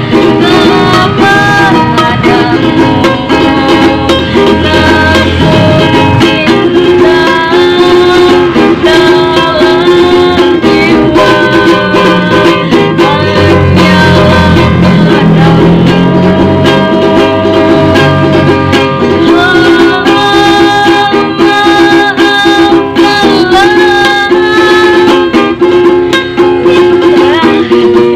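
Ukulele strummed continuously as accompaniment to a child singing a song.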